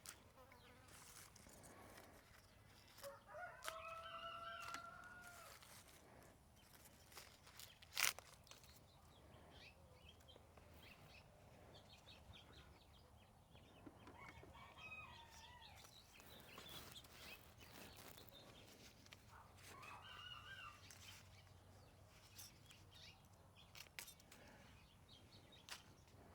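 A rooster crowing faintly three times, with one sharp click about eight seconds in.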